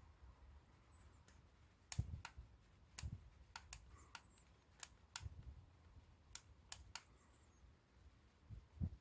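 Scattered light clicks and taps, about a dozen at irregular intervals, with a few soft low knocks: small tools and plastic parts being handled during the repair work.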